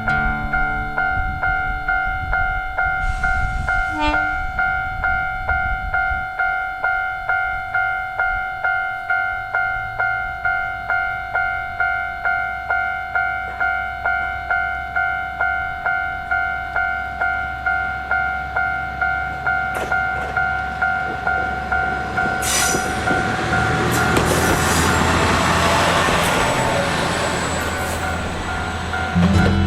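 Railway level-crossing alarm ringing: a steady two-tone signal pulsing at an even, quick beat. About two-thirds of the way through, an Isumi Railway diesel railcar passes, its rushing noise swelling and fading under the alarm.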